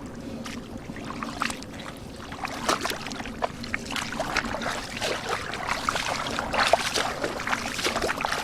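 Shallow water splashing and sloshing irregularly, as when fish are grabbed by hand in a drying pond, busier from about two and a half seconds in. A steady low hum runs underneath.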